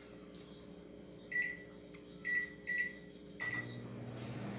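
Microwave oven keypad beeping four times as the cooking time is entered and start pressed, then the oven starting up with a steady low hum about three and a half seconds in.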